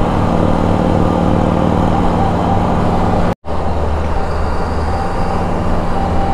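Can-Am Spyder RT three-wheeled motorcycle's engine running steadily at cruising speed, about 4000 rpm at 56 mph, with wind rushing past behind the windscreen. A little past halfway the sound cuts out for an instant, then the same engine and wind noise carries on.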